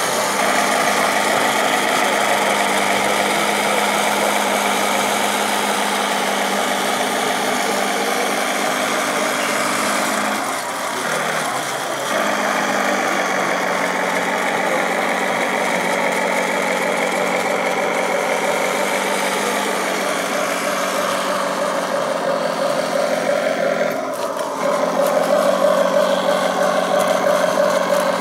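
Remote-control model KV-1 tank driving over brick paving, giving off a steady engine-like drone that changes pitch briefly about a third of the way in and again near the end as it manoeuvres.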